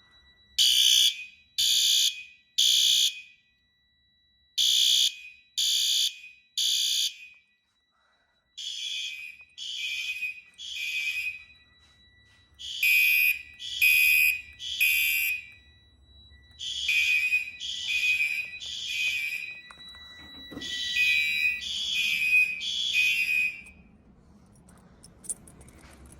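Fire alarm notification appliances on a Notifier RP-2002 conventional fire alarm system in alarm, sounding the temporal-three evacuation pattern: three blasts about a second apart, then a pause, repeated six times. A faint steady high tone runs underneath until near the end.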